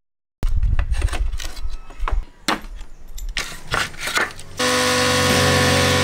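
A string of irregular knocks and clatter of wood being handled, then about four and a half seconds in a steady hum with several held tones sets in.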